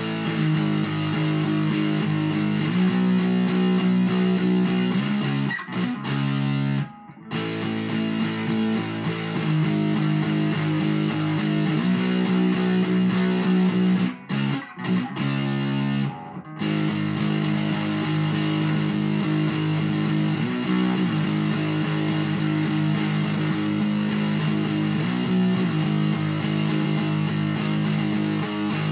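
Electric guitar with big single-coil pickups played through an amp and miked, chords strummed and left ringing, with a few short stops where the sound is cut off.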